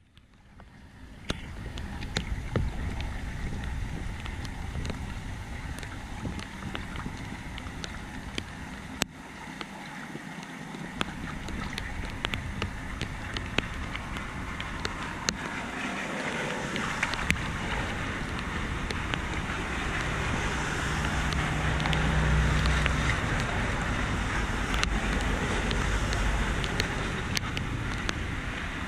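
Floodwater rushing into a cleared street storm drain, mixed with wind buffeting the microphone and scattered small taps. The rush grows louder through the second half.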